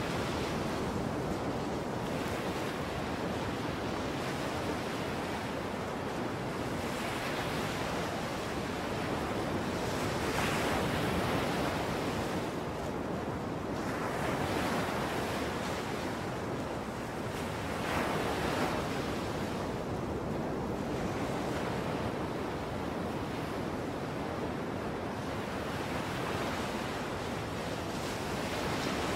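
Ocean surf: waves washing in and breaking, swelling and easing every few seconds, with no music.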